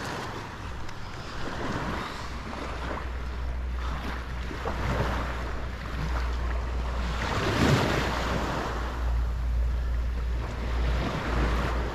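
Wind buffeting the GoPro's microphone with a steady low rumble, over the wash of small waves in shallow surf. The wash swells louder about two-thirds of the way through.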